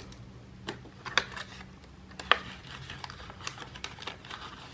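Scattered light clicks and rustles of paper banknotes and a wallet being handled while cash is stuffed. There are a few sharper taps in the first half and softer ones later.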